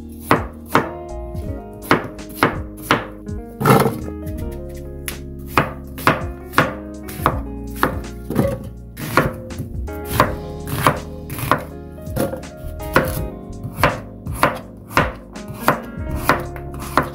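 Chef's knife chopping peeled pear, green apple and white radish into chunks on a cutting board: sharp knocks of the blade on the board, about two a second and unevenly spaced.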